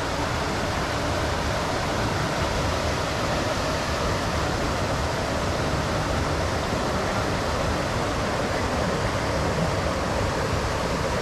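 Steady rush of flowing water, an even hiss that neither rises nor falls.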